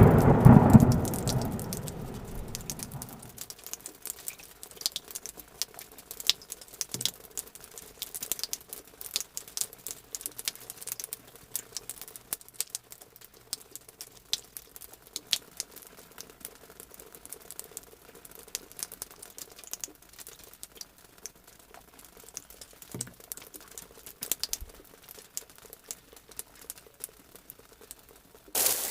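Rain falling in scattered drops and patter, with a low thunder rumble fading away over the first few seconds. Loud, dense rain cuts in suddenly near the end.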